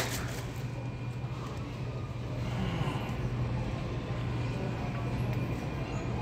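Steady low hum of supermarket background noise, with one sharp click at the very start.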